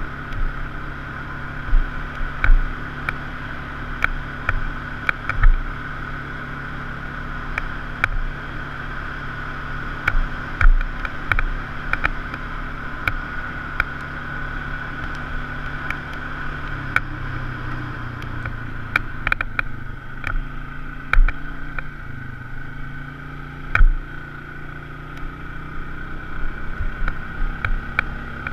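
Polaris RZR side-by-side driving a rough dirt trail: a steady engine drone with a high whine, broken by frequent sharp knocks and rattles from bumps. The engine note shifts lower partway through, then comes back.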